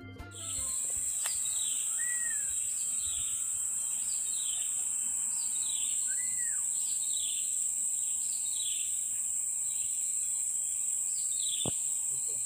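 Natural hillside ambience: a steady high-pitched insect drone, with a falling chirp repeating about once a second. Two short arched bird calls come about 2 and 6 seconds in, and a single click sounds near the end.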